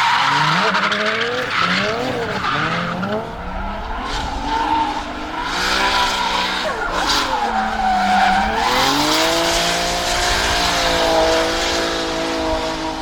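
Nissan S14's swapped-in RB26DET 2.6-litre twin-turbo straight-six revving hard through a drift, its revs rising and falling repeatedly, then dipping about eight seconds in before holding high and steady. Tyres squeal and skid throughout.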